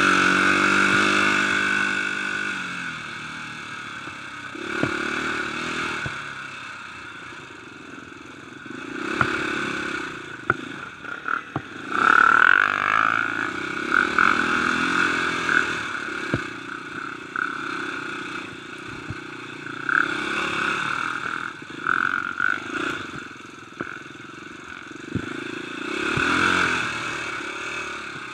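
Dirt bike engine being ridden hard on a rough trail, revving up and dropping back again and again. Scattered sharp knocks and rattles come through as the bike goes over the rough ground.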